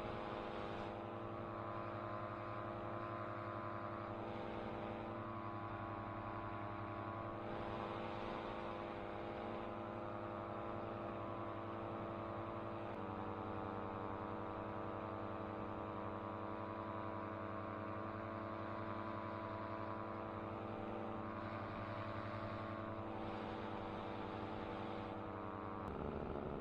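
Air Conception Tornado 280 two-stroke paramotor engine running steadily at a constant throttle, its pitch stepping down slightly about halfway through.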